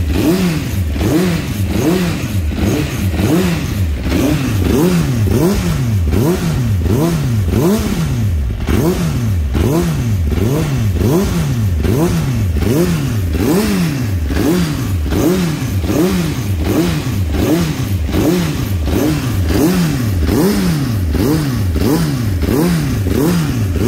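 Tuned Honda CBR600 F3 inline-four engine, heard through an aftermarket aluminium end can, revved over and over on the throttle, its pitch climbing and dropping back in a quick, even rhythm.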